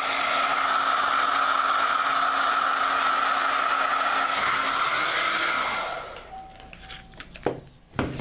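Handheld hair dryer running, a steady rush of air with a high whine, blowing onto wet liquid latex to dry it. It switches off about six seconds in and winds down, followed by a couple of light knocks.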